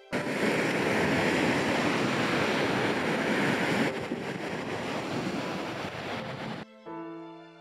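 A car driving through deep floodwater on a road, its tyres throwing up spray in a loud, steady rushing splash that eases about four seconds in, with wind on the microphone. Piano music comes back near the end.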